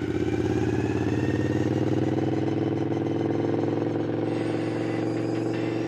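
Racing lawnmower's Briggs & Stratton Vanguard V-twin 20 hp engine running steadily under load. From about four seconds in, a faint high whine climbs slowly in pitch.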